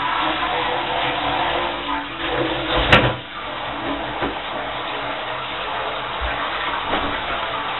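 Water running steadily from a tap to fill a container, with one sharp knock about three seconds in, after which the running sound is a little quieter.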